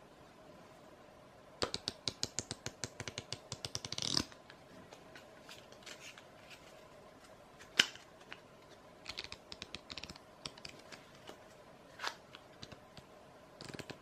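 A deck of playing cards being riffled with the thumb: a quick run of card clicks lasting about two and a half seconds, then scattered single snaps and taps as the cards are handled, and another riffle starting near the end.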